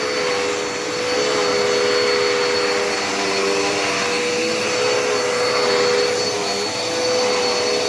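Dirt Devil Endura Reach bagless upright vacuum cleaner running steadily on carpet, a constant motor whine over rushing air that swells and eases slightly as it is pushed back and forth.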